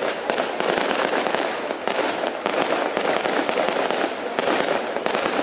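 Fireworks display: many rapid pops and crackles run together into a dense, steady crackling.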